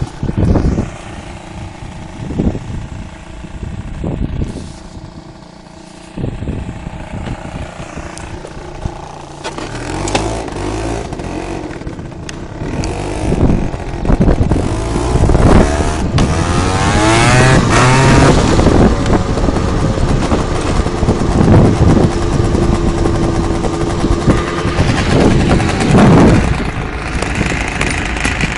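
Peugeot Speedfight 2 scooter's two-stroke engine running under way, its pitch rising and falling as it speeds up and slows. It is quieter for the first third, then louder and revving harder, with occasional knocks.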